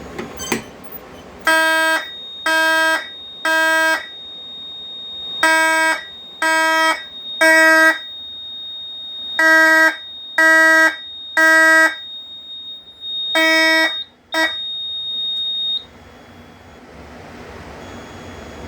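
Fire alarm horn sounding the temporal-three evacuation pattern (three short blasts, a pause, repeat) after a manual pull station is pulled. The panel goes into alarm, and the horn cuts off partway through its fourth cycle when it is silenced. A steady high-pitched tone runs under the blasts and stops a little after them.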